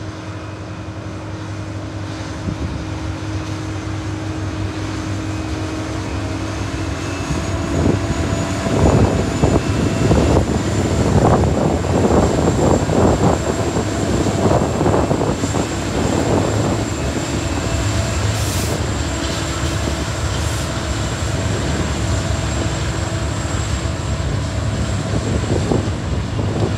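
Two TasRail TR class diesel-electric locomotives running as they approach and pass close by on an overpass, their steady engine tones growing louder until they pass at about nine seconds in. After that comes the heavier rumble and clatter of loaded log wagons rolling across the bridge, with a thin steady high whine above it.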